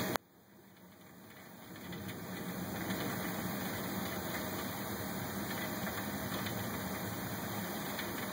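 Steady rushing of a heavy rainstorm through window glass, with a low rumble and a few faint ticks of drops. It cuts out sharply just after the start and swells back over the next two seconds or so.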